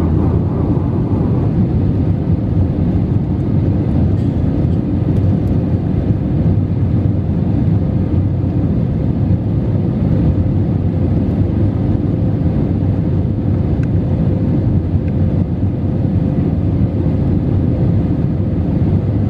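Cabin noise inside an Airbus A320 in the climb: a steady rumble of engines and airflow heard from a window seat over the wing, with a faint steady hum.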